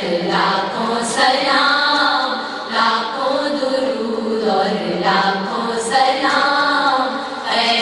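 A group of voices singing a naat, an Urdu devotional poem in praise of the Prophet, in long sung phrases with short breaks between them.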